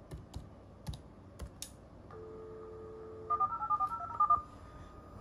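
A few computer keyboard clicks as the dial command is typed, then a steady dial tone comes on about two seconds in over the US Robotics Courier V.Everything 56K modem's speaker. About a second later the modem dials a rapid string of touch-tone (DTMF) digits, the loudest part, to place a new call over the VoIP line.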